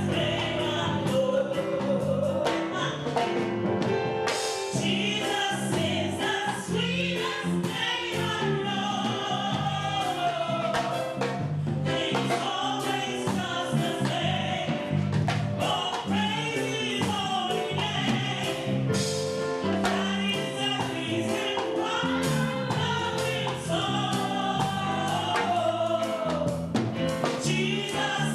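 Gospel music: a choir singing over instrumental backing with a steady bass line.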